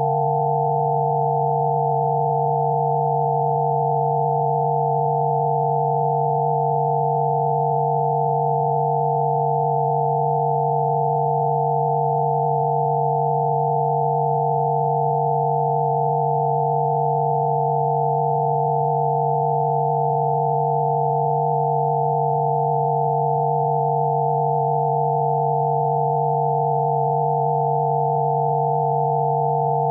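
Synthesised Rife-frequency sine tones layered together and held perfectly steady: a low tone and a cluster of higher, pure tones, with no change in pitch or loudness.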